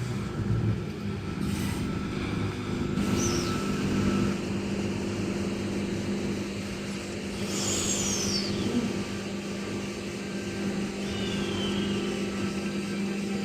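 Steady low engine hum with a rumbling background, and two short high chirps that fall in pitch partway through.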